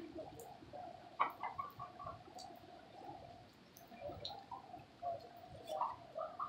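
Light rain falling and dripping on a wet street, with faint bird calls and a few sharp knocks, the loudest about a second in.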